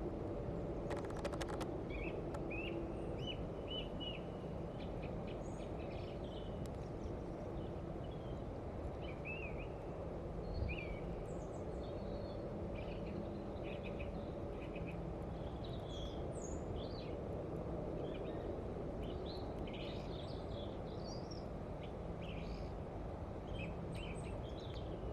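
Small birds chirping on and off over steady low outdoor background noise, with a short run of clicks about a second in and a single soft thump about ten seconds in.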